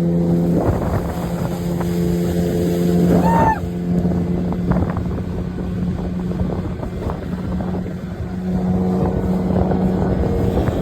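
Motorboat engine running with a steady drone, with wind and water noise rushing past.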